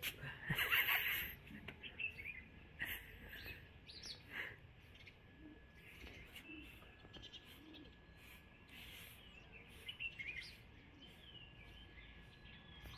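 Small wild birds chirping and calling on and off, short high chirps with little rising and falling glides. A short, louder noise comes about half a second in.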